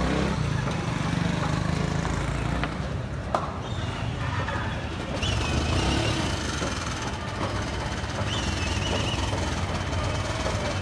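Steady low rumble of street traffic with vehicle engines running, with a single sharp knock about three seconds in and two brief high chirps around five and eight seconds in.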